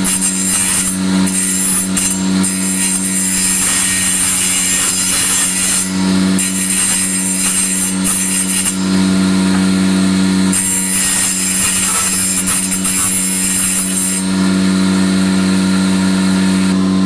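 An electric woodworking power tool running steadily with a hum, a high hiss switching on and off for a few seconds at a time as it works the wood.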